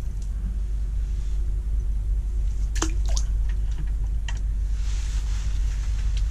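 Water plopping and dripping in an augered ice-fishing hole: a few sharp plops about three seconds in and again a little later, then a soft hiss of stirred slush, over a steady low rumble.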